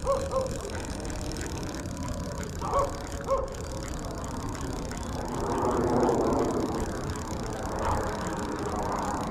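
Spinning reel being cranked to retrieve the line, a steady whirring that swells from about five seconds in, over wind rumble on the microphone. A dog gives short yips twice in the first few seconds.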